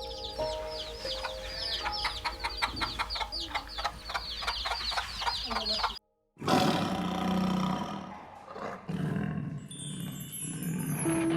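A quick run of high, chirping animal calls, about five a second, lasts roughly six seconds and then cuts off. After a short break a low, rough animal roar follows. Soft piano music plays underneath throughout.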